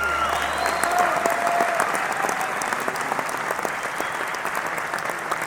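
Crowd applauding and cheering, a dense patter of many hands clapping, with a long wavering call over the first two seconds or so. A stock 'win' sound effect.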